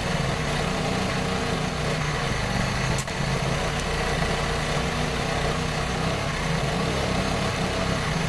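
AHP TIG welder's arc running steadily on steel while filler rod is fed in, a continuous hiss over a low hum. There is a brief click and dip about three seconds in.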